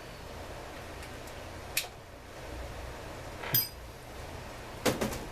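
Small metal parts and hand tools clinking as they are handled and set down on a workbench: three sharp clinks, the middle one ringing briefly and the last a quick double.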